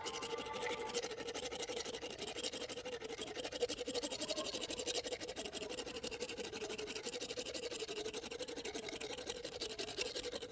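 Hand-held equine dental float (rasp) scraping in rapid back-and-forth strokes over a donkey's cheek teeth, filing down a sharp hook on a tooth.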